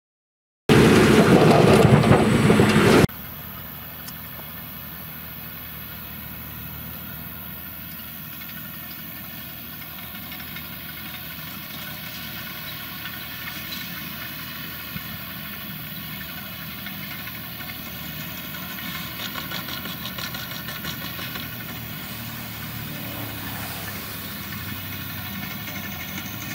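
A short loud burst of noise about a second in, cut off suddenly, then a tractor's diesel engine running steadily while it pulls a round baler through the swaths, growing slowly louder.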